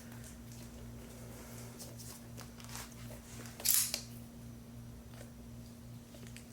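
Handling of a plastic Blu-ray case: faint clicks and taps, with one brief rustle or scrape a little past halfway, over a steady low electrical hum.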